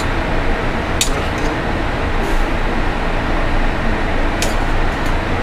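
Metal tongs clinking twice against a sauté pan and china plates while food is plated, about a second in and again near the end, over a steady loud rush of kitchen ventilation.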